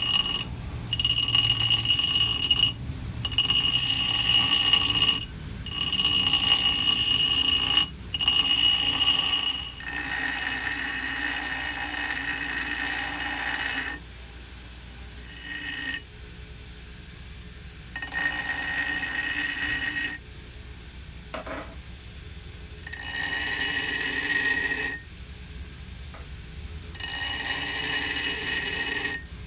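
Grinder running steadily while the hardened steel chisel is pressed to it in repeated passes of about two seconds, each pass giving a high, steady ringing whine that cuts off as the steel is lifted; the pitch shifts from pass to pass.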